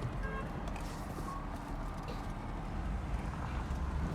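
Steady low rumble of the GMC's engine running, heard from inside the cab.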